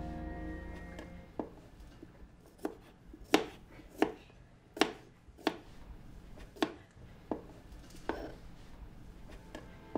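Kitchen knife slicing small cucumbers on a cutting board: about ten sharp knocks of the blade reaching the board, irregularly spaced, roughly one a second.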